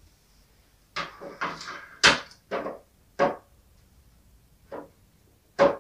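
Hard plastic clacks and taps as a Sylvanian Families dollhouse floor panel is set down and fitted into place: about seven separate knocks, the loudest about two seconds in.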